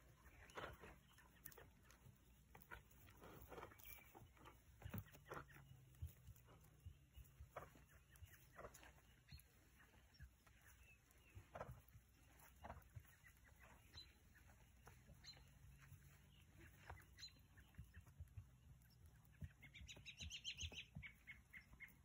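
Near silence with faint, scattered soft knocks; about twenty seconds in, a brief high-pitched bird call.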